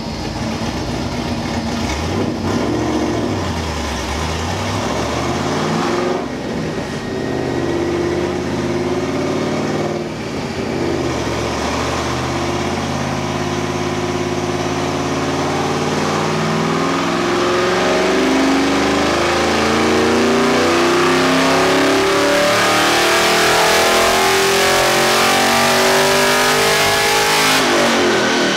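V8 car on a chassis dyno making a full-throttle pull with its exhaust cutouts open. After a few seconds at lower revs with short blips, the engine note climbs steadily for about twenty seconds, getting louder, then drops off sharply near the end.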